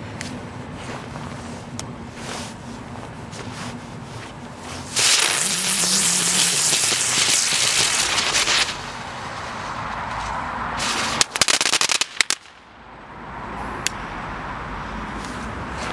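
Lesli Chilli Spinners ground spinner firework spinning with a loud hiss for about four seconds. A little later comes its crackling finale, a burst of rapid sharp cracks lasting about a second.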